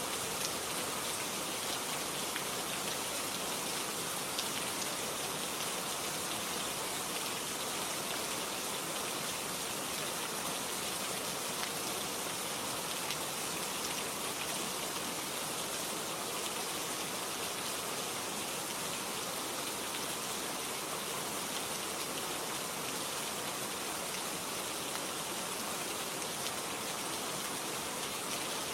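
Steady rain falling, an even hiss of many drops with no thunder or other events.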